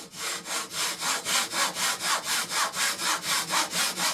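Hand saw cutting a piece of wooden trim, in quick even back-and-forth strokes at about four a second.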